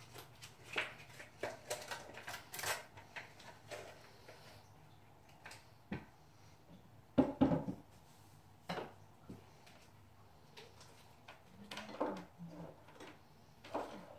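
Small knocks, clicks and rustles of things being handled and set down on a bedside nightstand, with the loudest clatter about seven seconds in.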